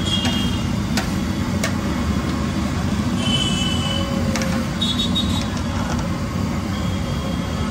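Green bhujia deep-frying in a large steel kadhai of hot oil over a steady low rumble, with a few sharp metallic clinks and scrapes as the long slotted ladle strikes and drags against the pan.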